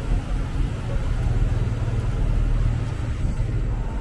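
Low, steady engine rumble of a city bus running beside the sidewalk, over general street traffic noise.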